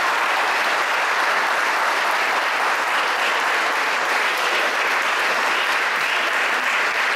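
Audience applauding steadily, a dense sustained clapping from a full hall.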